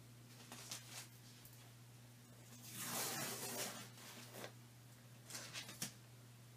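Blue painter's tape being pulled off the edge of a resin-coated canvas: a rasping rip about three seconds in, lasting about a second, with a few light clicks and taps from handling the canvas.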